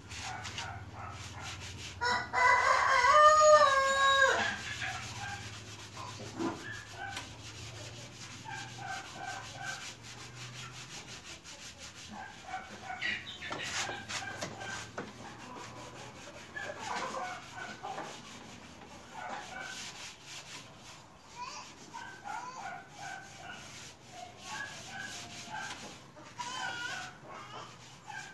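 A rooster crows once, loudly, about two seconds in: one long call that steps down in pitch at its end. Through the rest come softer short clucks and chirps, with scattered light clicks and rubbing.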